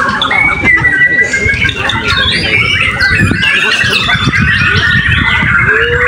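Many caged white-rumped shamas singing at once: a dense, continuous tangle of overlapping whistles and chirps.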